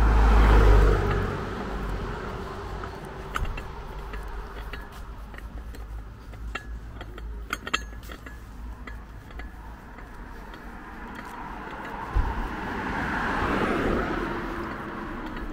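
Dishes clinking in a carried shopping bag while walking, a scatter of small clinks through the middle. A car passes at the very start, the loudest sound, and another passes near the end.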